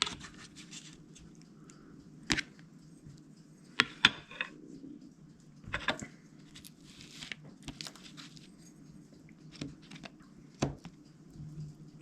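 Scattered sharp clicks and taps, with light crinkling between them, as pan-fried panfish fillets are handled on a plate with utensils. A faint steady low hum runs underneath.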